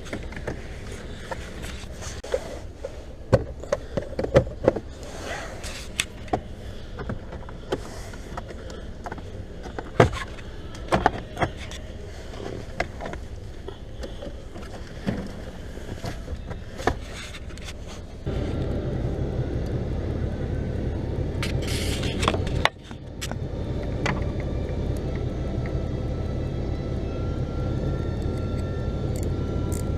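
Sounds in a Ford Fiesta: sparse, irregular clicks and knocks over a low background, then a steady low hum starts abruptly past the middle, cuts out for a moment and resumes.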